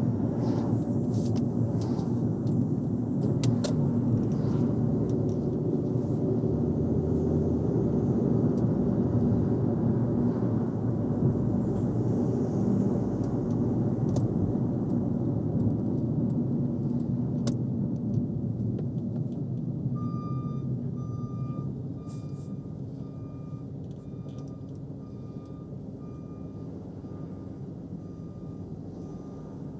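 Steady road and engine rumble of a car driving, easing off about two-thirds of the way through. A reversing alarm then starts up, a series of evenly spaced high beeps.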